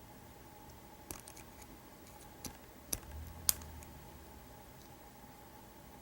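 Faint metallic clicking of a hook pick and tension wrench working the pins inside an American Series 50 steel padlock: a few light ticks, then three sharper clicks in quick succession around the middle.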